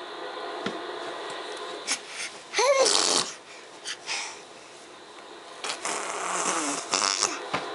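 A five-month-old baby vocalising: a loud, breathy squeal that rises and falls in pitch about two and a half seconds in, then softer breathy, spluttering sounds near the end.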